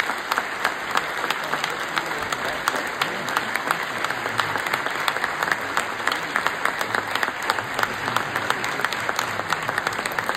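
Large audience applauding, a dense, steady clapping that does not let up.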